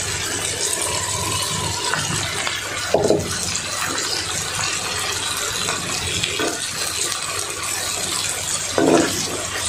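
Chopped tomatoes frying in oil and spices in a wok: a steady sizzle as the tomato cooks down, with two short clatters, one about three seconds in and one near the end.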